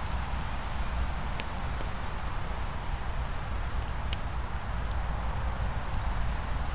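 Steady outdoor background of low rumble and hiss, with a small bird singing quick runs of high chirps from about two seconds in.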